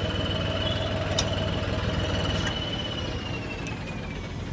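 Tractor diesel engine idling steadily, with a thin high whine that slowly drops in pitch near the end and a single sharp click about a second in.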